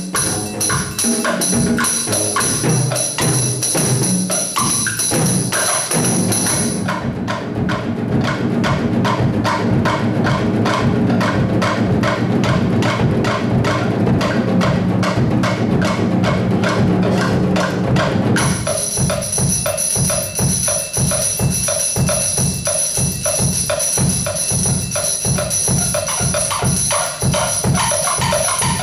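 Percussion ensemble playing a fast, steady groove on drums, with a steady high shimmer over the beat. The shimmer stops about a quarter of the way in, leaving heavier drumming, and comes back a little past halfway.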